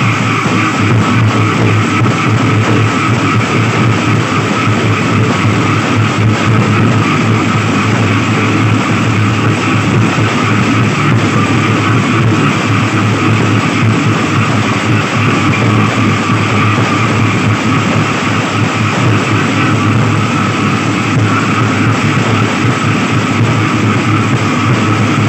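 Nagara naam ensemble: large brass bhortal cymbals clashing and ringing together with nagara drums beaten with sticks, a loud, dense, unbroken din.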